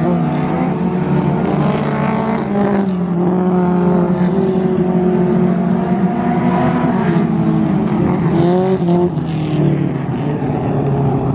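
Engines of several dirt-track stock cars running around the oval, their pitch rising and falling as the cars lift and accelerate through the turns, with one brief rise and fall of revs near the end.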